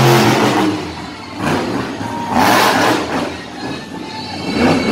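Monster truck engine revving hard in about four loud bursts, roughly a second apart, during a freestyle run.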